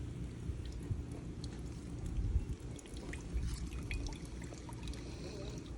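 Coconut water trickling and dripping from a cracked coconut into a cup, with small scattered drips over a low rumble.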